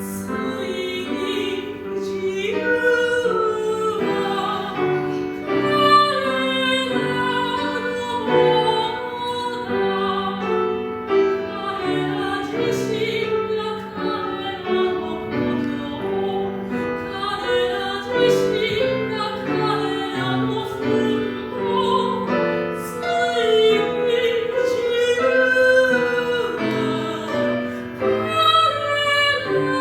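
A soprano singing an art song in operatic style with vibrato, accompanied by piano.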